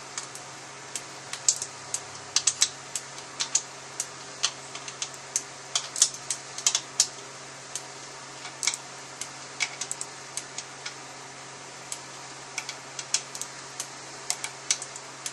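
Torque wrench tightening valve body bolts to 80 inch-pounds: scattered sharp metal clicks at irregular intervals, sometimes in quick pairs, over a steady low hum.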